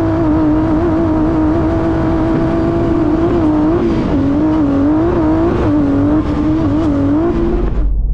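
Twin-turbo V6 trophy truck engine running hard at high revs, its note wavering up and down with the throttle. The sound cuts off suddenly near the end, leaving a low rumble.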